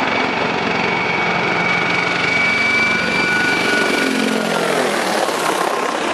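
Mi-24-family attack helicopter flying low and close: loud turbine whine over rotor noise, its pitch falling as it passes overhead about four seconds in.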